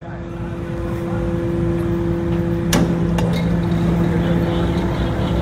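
Car ferry's machinery running with a steady low drone while its bow ramp is raised, with two sharp knocks about half a second apart near the middle.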